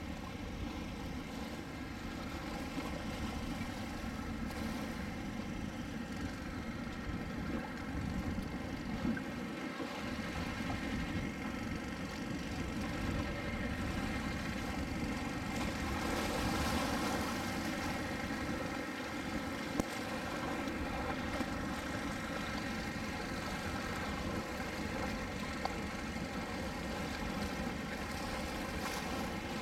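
A steady engine drone: an unchanging hum of many evenly pitched tones over a low rumble, with a couple of brief ticks.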